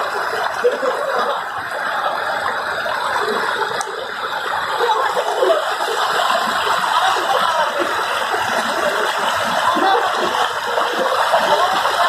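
Shallow mountain river, the Rammam, rushing and splashing over and between boulders in a steady rush of white water.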